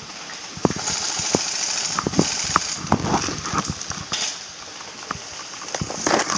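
Irregular footsteps and knocks with a rustling hiss, busiest from about one to four seconds in, from a person moving on foot across the field.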